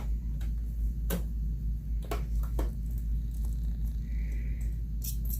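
A few light clicks and taps from hands working a pin out of fabric at a sewing machine, over a steady low hum.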